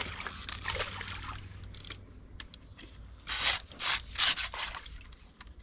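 Rustling and rubbing as an angler moves in dense bankside vegetation while landing a fish, with a few louder swishes about three to four seconds in.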